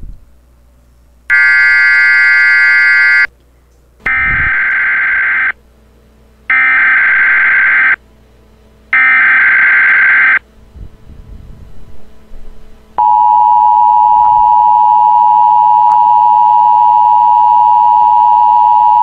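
Emergency Alert System header and attention signal: a burst of electronic tone, then three harsh screeching data bursts about a second apart, then from about two-thirds of the way in a loud, steady single-pitched attention tone that holds.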